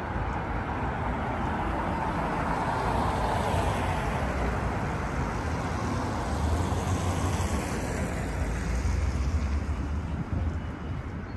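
Road traffic passing: steady tyre and engine noise from cars, with a deep engine rumble that grows stronger past the halfway point.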